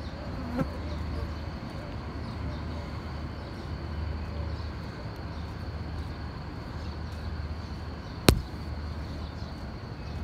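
Quiet outdoor street ambience: a steady thin high-pitched whine over a low rumble, with one sharp click about eight seconds in.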